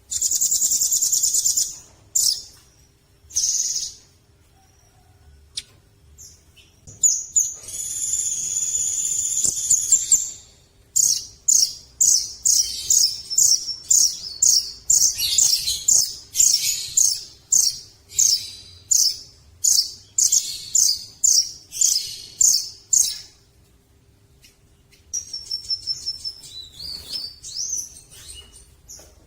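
Velvet-fronted nuthatch singing: high, rapid trills, then a long series of sharp repeated notes at about two a second, then softer quick twittering near the end.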